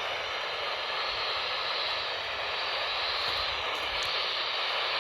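Steady hiss of static from a weather radio on a weak signal.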